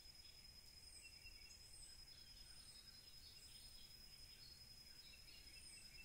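Near silence: faint outdoor background with soft, scattered bird chirps and a thin, steady high tone.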